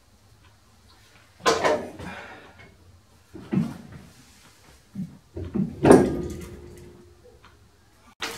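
Clunks and knocks of heavy steel parts being handled onto a lathe saddle beneath a chain hoist, a handful of separate strikes. The loudest, about six seconds in, rings on briefly like struck metal.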